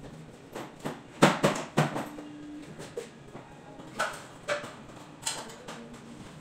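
Aluminium ladder knocking and clanking as a man climbs its rungs: a quick run of sharp knocks about a second in, then single knocks a few seconds later.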